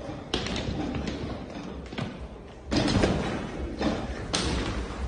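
A person falling backward off a gym bench onto the floor: a few thuds and knocks, the loudest cluster about three seconds in.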